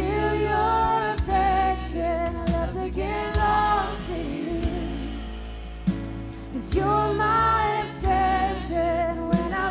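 Live worship band playing a slow song: a woman sings two long, held phrases over bass guitar, keyboard and drums.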